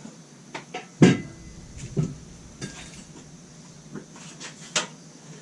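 Irregular knocks and clanks of construction work, as the temporary supports are taken out from under a newly framed wall; the loudest knock comes about a second in, with another about a second later and lighter clanks after.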